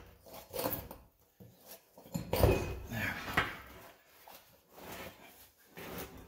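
Irregular metal clunks and scraping as a rusty spoked steel wheel is rocked and pulled by hand on its hub, loudest about two to three and a half seconds in.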